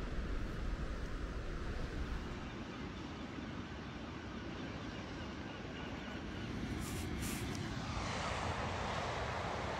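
Wind rumbling on the microphone outdoors, a steady rushing noise that swells into a broader hiss about eight seconds in.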